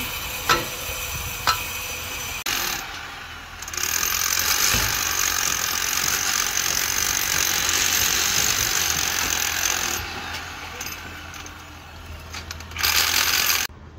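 Construction-site work noise: two sharp knocks on steel formwork near the start, then a steady rasping mechanical noise for about six seconds and a short loud burst near the end.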